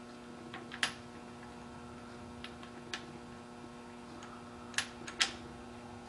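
A few sharp light clicks and taps of metal parts being handled on a machine table, the loudest two close together near the end, over a steady low electrical hum.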